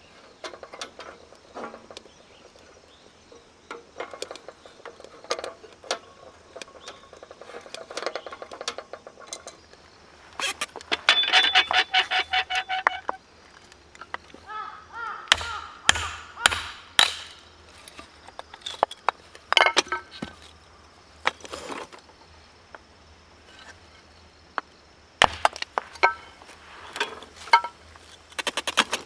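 Scattered wooden knocks, snaps and metallic clinks of firewood being handled around a small steel wood stove, with a pulsed buzzing tone for about two seconds near the middle.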